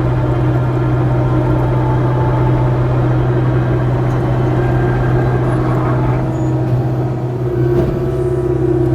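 Kubota KX057-4 mini excavator's diesel engine running at a steady hum, heard from inside the cab, its tone shifting slightly near the end.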